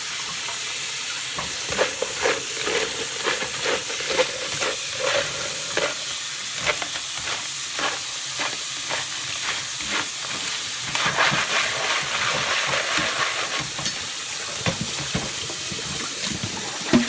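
Kitchen tap running onto crayfish in a plastic colander over a stainless-steel sink, with frequent rattling clicks as the crayfish are stirred with a spoon and shaken in the colander.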